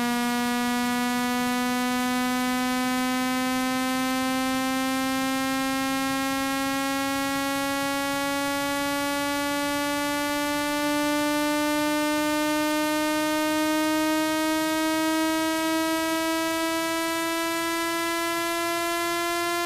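Synthetic buzzing tone with many overtones, its pitch rising slowly and steadily: a frequency sweep played to vibrate water out of a phone speaker.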